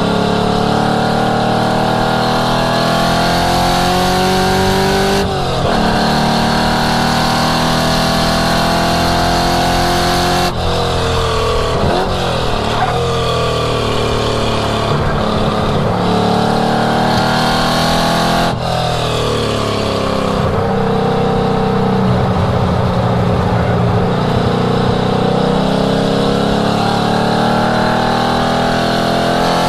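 1967 Ford Mustang race car engine at full throttle on track. The revs climb steadily and drop sharply at gear changes about five and eighteen seconds in. Around ten to thirteen seconds in the revs fall and rise unevenly while the car slows for a corner.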